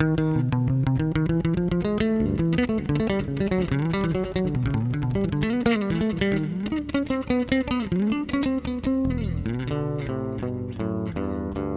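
Instrumental music: a fast plucked-string melody over a bass line.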